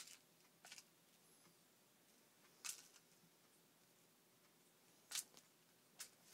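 Near-silent room with a few brief, hissy rustles, about four, as a cat rolls and paws on its back on a fabric duvet.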